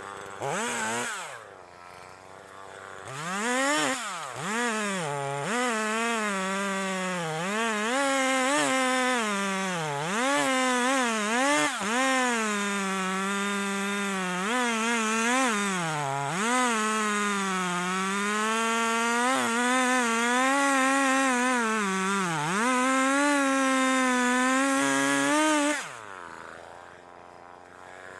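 Husqvarna 340e two-stroke chainsaw cutting through a felled chestnut trunk. It revs up about three seconds in, its pitch sags and recovers as the chain bites, and it drops back to idle near the end.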